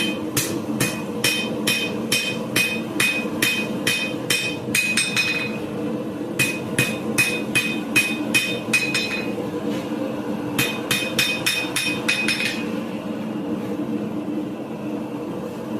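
Hand hammer striking hot steel on an anvil, drawing the piece out: three runs of quick, even ringing blows, about three to four a second, with short pauses between them and none in the last few seconds. A steady low hum runs underneath.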